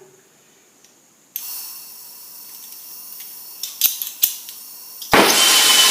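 Acetylene torch being lit: gas starts hissing from the tip about a second and a half in, a spark igniter clicks twice, and near the end the flame catches and the torch burns with a sudden, much louder steady noise.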